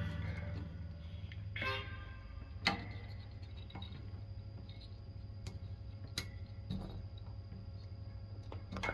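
A pause in the playing: steady electrical hum from the amplified green bullet harmonica mic, with a few scattered light clicks and taps.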